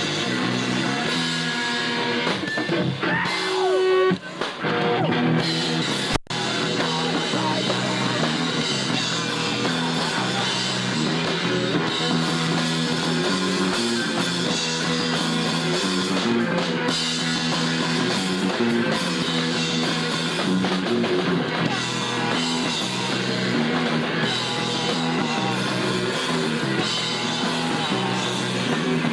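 Live punk rock band playing: electric guitar and drum kit, recorded loud from the crowd, with a brief dip in the sound about four seconds in and a sharp dropout about six seconds in.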